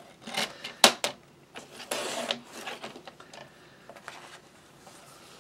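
Fiskars sliding paper trimmer cutting cardstock: a sharp click about a second in, then the cutting head scraping along the rail as it slices, with smaller clicks and paper rustling. The blade is worn dull and leaves rough edges.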